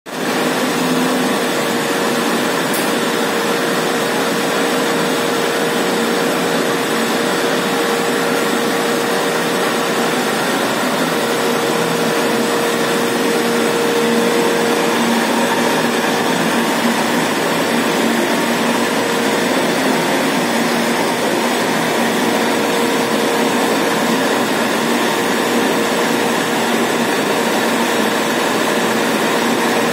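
Roll-to-roll film printing machine running steadily as the printed film web feeds over its rollers: an even, dense whir with a steady hum tone in it.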